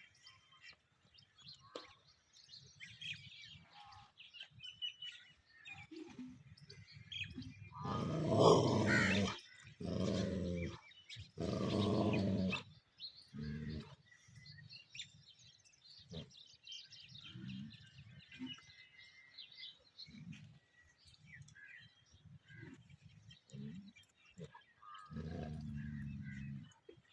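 Dogs growling at each other in a scuffle: low growls on and off, with three loud bouts of growling close together about eight seconds in and another near the end. Birds chirp faintly in the background.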